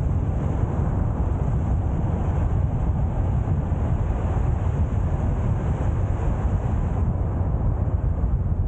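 Steady road and engine rumble of a car driving, heard from inside the cabin.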